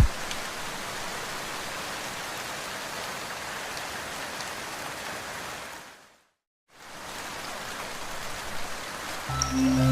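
Steady rain falling, an even hiss of drops. It fades out to a moment of silence about six seconds in and returns, and music comes in over it just before the end.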